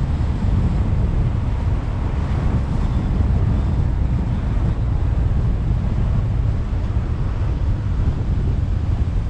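Steady rumble of wind buffeting a car-mounted GoPro's microphone under a foam wind muffler, mixed with the tyre and road noise of a car driving along a city street.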